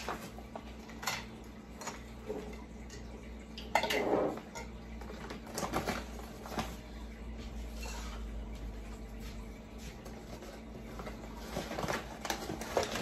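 Kitchenware being handled on a countertop: scattered clinks and knocks of dishes and utensils, with a louder clatter about four seconds in.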